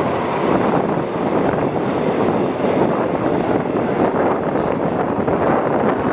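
Steady rush of railway passenger coaches running close alongside on the next track, heard from an open carriage window, with wind on the microphone.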